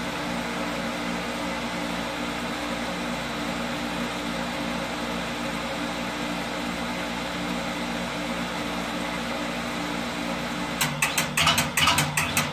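Well pump motor running with a steady hum and hiss. Near the end, strummed guitar music starts.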